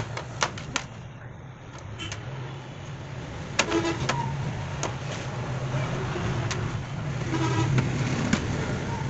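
Small metal starter-motor parts (armature, pinion drive, fork lever) clicking and knocking as they are picked up and set down on the workbench, a handful of sharp taps with two short rattles, over a steady low hum.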